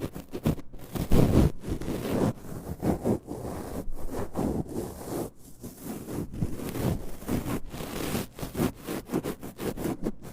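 Close-miked ASMR ear-cleaning sounds: an ear scraper rubbed quickly against the ear in many short, irregular scraping strokes, several a second.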